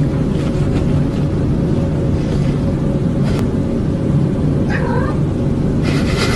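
A cat purring loudly and steadily, with a short meow about five seconds in.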